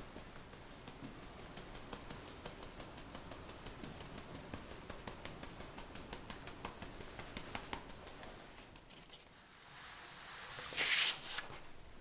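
Fine-mesh sieve being tapped to dust powdered sugar over piped ladyfinger batter: rapid, even light taps, several a second, that stop after about eight seconds. A brief, louder noise follows near the end.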